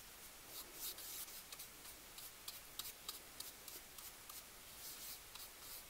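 Faint scratching and light ticks of a thin paintbrush stirring a puddle of acrylic paint on a foam plate, mixing textile medium into the paint.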